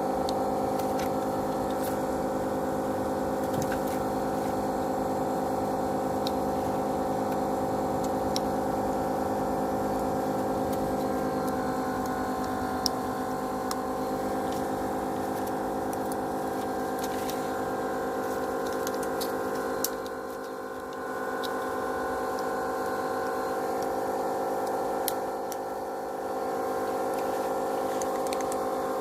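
Steady droning hum of a running workbench machine, dipping briefly twice in the second half, with a few faint clicks of tools working on the phone.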